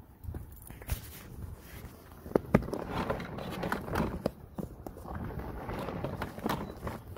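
Wire-reinforced vinyl ventilation duct being handled, crinkling and rustling with scattered clicks, louder from about two and a half seconds in.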